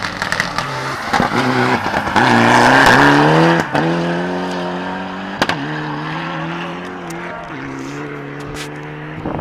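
Rally car engine revving hard through a hairpin, loudest two to three seconds in, with some tyre or gravel noise. It then shifts up twice, with a sharp crack at each change, and holds a steadier note as it pulls away and fades.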